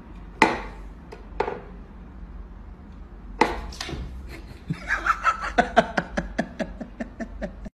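Sharp knocks and taps on a cat's whack-a-mole style toy box as a cat paws at it, a few separate hits at first. Then comes a quick run of short sharp sounds, about five a second.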